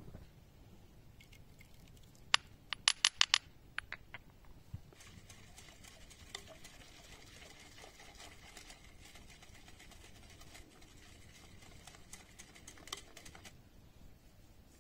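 A wood fire crackling, with a quick cluster of sharp pops about two to three seconds in. Then a whisk stirs milk in a glass bowl: a steady run of light, rapid clinking and swishing that stops shortly before the end.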